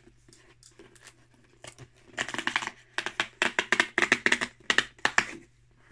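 Cardboard subscription box being opened by hand: after a few faint handling clicks, about two seconds in comes a run of rapid crackling tearing that lasts about three seconds.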